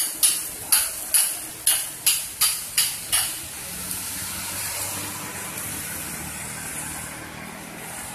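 Asphalt-paving machinery at work: a quick run of about nine sharp hissing bursts, roughly two a second, over the first three seconds, then the paver and rollers' engines running steadily with a low hum.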